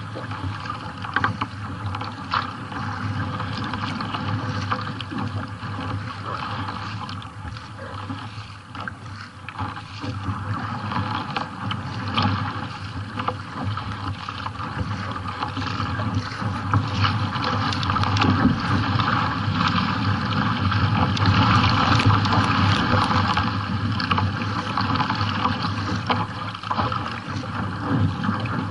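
Water rushing and splashing along a sea kayak's hull as it is paddled through choppy water, louder in the second half.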